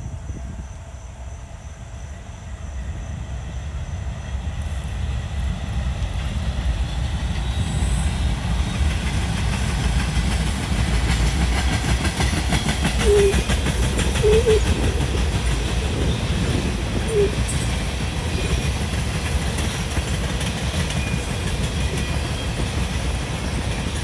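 A train passing close by: a deep rumble and a dense, steady run of wheel clicks over the rail joints. It grows louder over the first ten seconds or so and stays loud for the rest.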